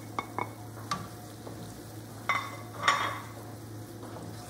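Spatula scraping and tapping against a metal pan as ground spices are stirred into frying garlic, onion and ginger, with a faint sizzle and a steady low hum underneath. A few light taps come in the first second, and two louder scrapes come about two and three seconds in.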